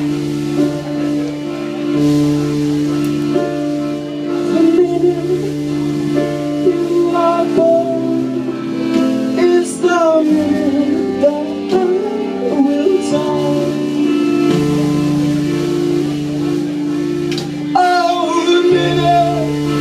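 Live rock band with accordion playing an instrumental passage: held accordion chords and low notes changing every few seconds under electric guitar lines, with drums.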